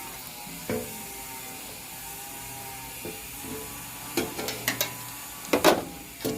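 Sharp mechanical clicks and knocks: a single click about a second in, a quick run of clicks past the four-second mark, and the loudest knocks near the end.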